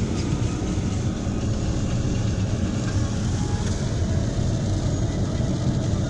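Heavy hail hitting a car's roof and windshield, heard from inside the cabin as a loud, dense, steady din.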